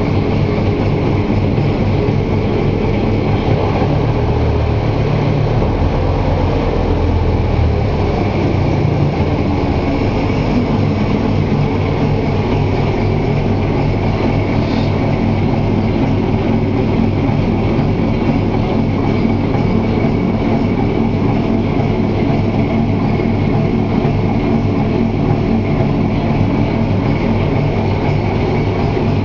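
Gardner 5LW five-cylinder diesel engine of a small shunting locomotive running steadily, freshly overhauled and on its second start-up, with a deeper, heavier note for a few seconds early on before it settles.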